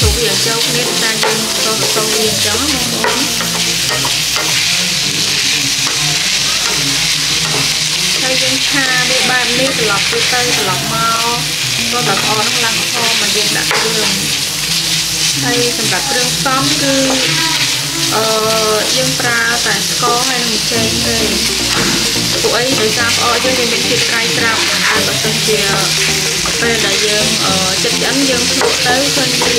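Minced pork and fermented fish frying in a nonstick skillet with a steady sizzle, while a wooden spatula stirs and scrapes through it.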